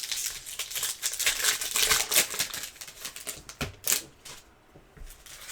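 Card-pack wrappers crinkling and tearing as packs of basketball cards are ripped open by hand, with cards being handled. Dense irregular crackling for about three seconds, a few sharper clicks, then it eases off near the end.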